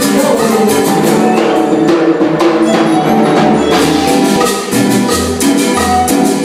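A cumbia band playing live, with steady percussion and melodic instruments; low bass notes come in about halfway through.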